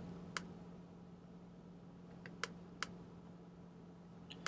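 Computer mouse clicking: about five short sharp clicks at uneven intervals, over a faint steady hum.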